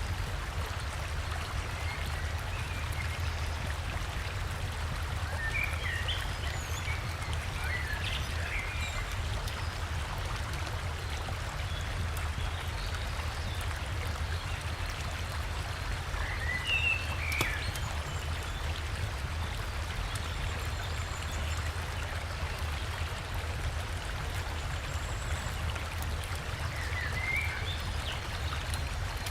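Steady rushing of river water over a deep low rumble, with short bird chirps scattered over it: a cluster a few seconds in, a couple around the middle, and one near the end.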